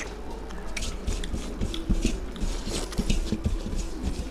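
Close-miked eating: wet smacking, slurping and squelching as soupy boiled rice (fena bhat) is eaten by hand from steel plates, with fingers scraping the rice off the plates in quick, irregular clicks.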